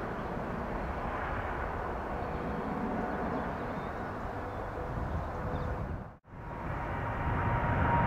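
Steady rumble of an Airbus A220-300's twin Pratt & Whitney geared turbofans as the airliner climbs away after take-off. About six seconds in the sound cuts out abruptly, and a second airliner's jet engines, a Boeing 787-9 in its climb, come in and grow louder, with a faint steady whine.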